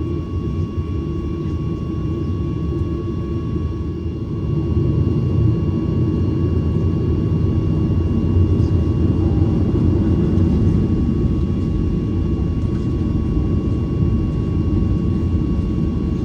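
Cabin noise inside a Boeing 737-900ER with its CFM56 engines running: a steady low rumble with a thin steady whine, growing louder about four seconds in.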